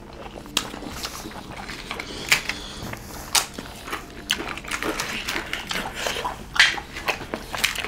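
Two people eating a wet rice-and-pork-porridge meal with their hands from steel plates: noisy chewing and mouth sounds, with scattered sharp clicks and smacks.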